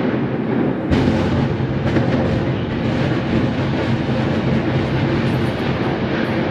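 Building implosion: a sharp blast about a second in, then a continuous low rumble as the high-rise collapses.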